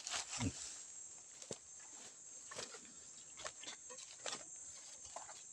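Faint footsteps and rustling through grass and dry leaves, with scattered light clicks.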